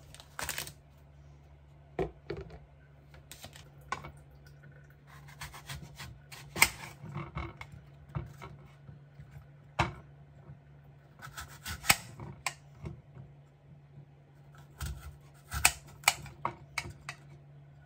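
A kitchen knife cutting an apple into pieces on a ceramic plate: irregular cuts and clicks of the blade against the plate, over a steady low hum.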